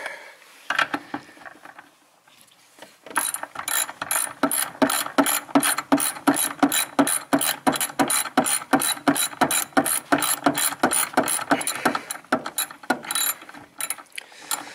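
A socket ratchet on an extension clicking quickly and evenly, about five clicks a second, as it runs off the nuts holding a brake master cylinder to the brake booster. It starts about three seconds in and stops near the end, with a few last clicks after.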